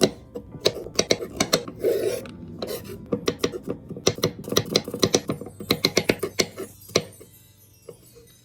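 Kitchen utensils clicking and scraping in quick runs of several strokes a second, with a few louder single knocks, as pasta ingredients are prepared.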